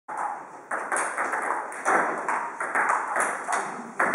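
Table tennis balls clicking off bats and tables, several rallies at once, in a quick irregular patter of sharp pings that ring on in a reverberant hall. The sound cuts in abruptly at the start.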